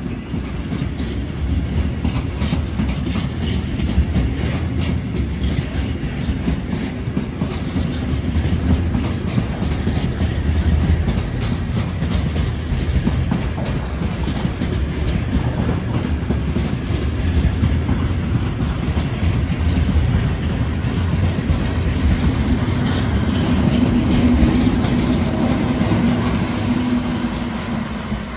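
Rake of rail tank wagons rolling past, wheels clacking over rail joints in a steady rumble. A DB class 295 diesel-hydraulic shunting locomotive is propelling them, and its engine hum grows louder as it draws near toward the end.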